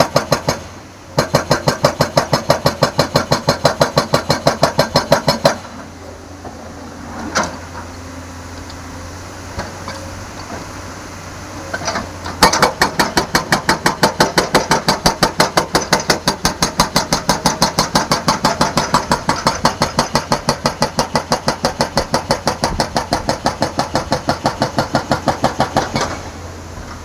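Hydraulic breaker on a JS205 tracked excavator hammering at the road surface in rapid, even blows, about seven or eight a second. It stops for about seven seconds with the machine's diesel engine still running, then resumes and hammers until near the end.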